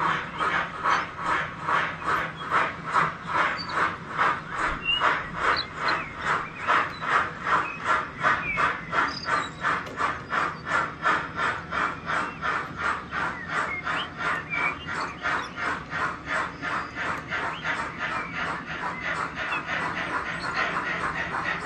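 Steam locomotive exhaust chuffing from the ESU LokSound decoders of double-headed H0-scale ÖBB 86 and 52 steam locomotive models, a steady beat of about two to three chuffs a second that grows somewhat fainter in the second half.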